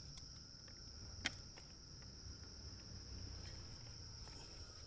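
Faint steady high-pitched insect trill, with one sharp click about a second in.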